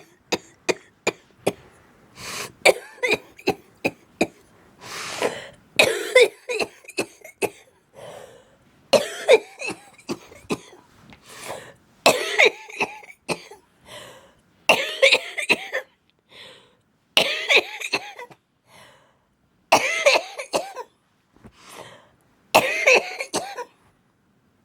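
A person coughing in a long series of fits: a quick run of short, sharp coughs at the start, then repeated bursts of several coughs each, a second or so long, with short pauses between them.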